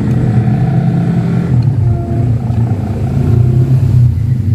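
An engine running steadily with a low drone.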